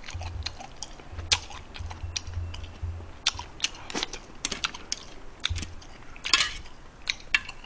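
Irregular light clicks and clacks of metal chopsticks picking through mussel shells in a metal pot.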